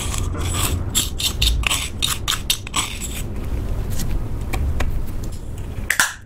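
Plastic spatula scraping and scooping glitter gel eyeshadow out of its compact pan, a run of quick scrapes and clicks over the first three seconds, then softer scraping. A sharp plastic click near the end as the compact's clear lid is snapped shut.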